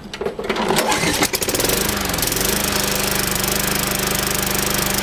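Craftsman push mower's single-cylinder four-stroke Tecumseh engine starting on a primed pull, running unevenly for a second or two, then settling into a steady run. This is the final test start after an oil change.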